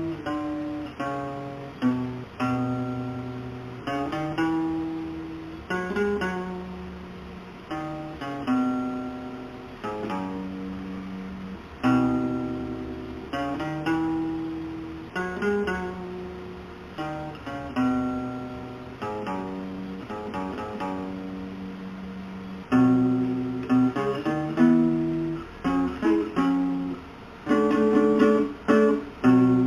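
A cheap Palmer classical (nylon-string) acoustic guitar played solo, recorded on a mobile phone. It plays a melody of plucked single notes and chords, each note ringing and fading before the next.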